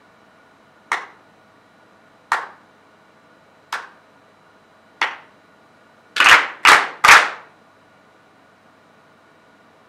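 A group clapping in unison: four single claps evenly spaced about a second and a half apart, then three louder claps in quick succession.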